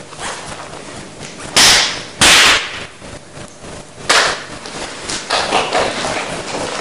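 Three short, sharp bursts of noise: two very loud ones about half a second apart near the start, then a softer third about two seconds later.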